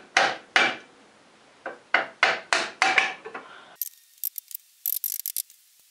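Rubber mallet knocking a Polaris ATV's cast rear axle bearing carrier onto the swing arm: two blows, a pause of about a second, then six more at about three a second. After that come light, scattered clicks and rattles.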